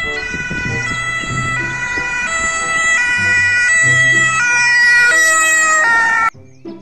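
Electronic ambulance siren: a string of held tones that jump to a new pitch about every two-thirds of a second, cutting off suddenly near the end.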